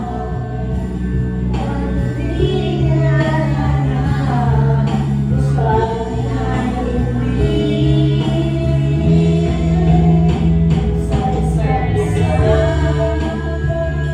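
Karaoke: a voice singing into a microphone over a backing track played through the sound system.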